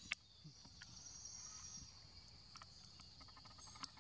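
Steady, high, faint insect drone of forest crickets, with a brief higher layer joining about a second in. A few sharp clicks, one right at the start and one near the end.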